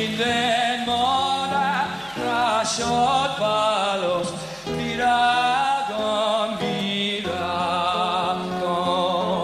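Male voice singing a Hungarian folk song live, in phrases with long held notes, over acoustic guitar accompaniment.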